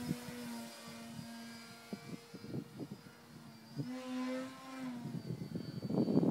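Engine of an Addiction 3D aerobatic RC plane droning overhead at a steady pitch, rising in pitch about four seconds in as the throttle opens, then easing back. A rough, noisy rumble builds near the end, louder than the engine.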